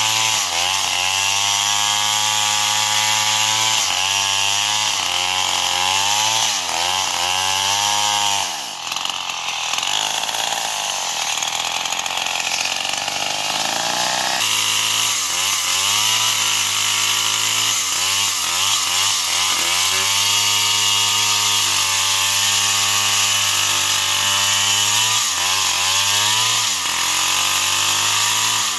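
Stihl two-stroke chainsaw cutting through a log, its engine pitch wavering up and down as the chain bites into the wood. About a third of the way in the engine drops sharply in speed, climbs slowly for several seconds, then jumps back to full speed and cuts again.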